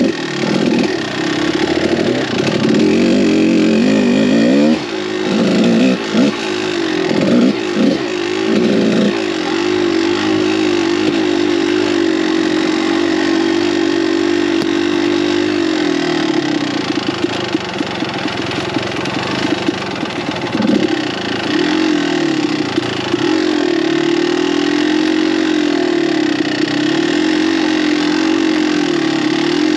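Kawasaki KDX200 two-stroke single-cylinder dirt bike engine under way on the trail, pitch rising and falling with the throttle. A run of quick blips comes about five to nine seconds in; the rest is steadier running with smaller swells.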